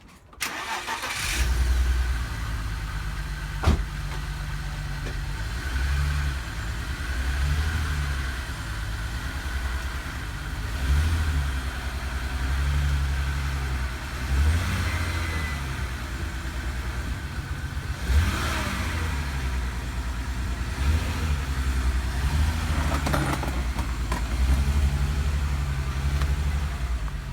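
BMW Z3 2.2's newly fitted replacement 2.2-litre straight-six engine starting about a second in and then running, its revs rising and falling as the car is moved for the first time. A single sharp knock a few seconds in.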